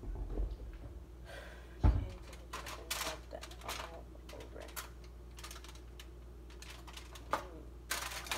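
Kitchen handling noises: a low thump at the start and a loud thud about two seconds in as she reaches into an upper kitchen cabinet, then a run of light clicks and taps from things handled on the counter.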